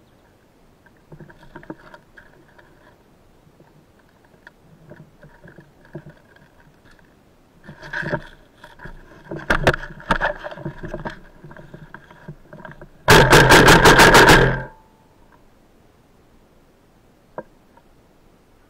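Airsoft gun firing a rapid string of about ten shots in roughly a second and a half, loud and close. Before it come scattered clicks and knocks.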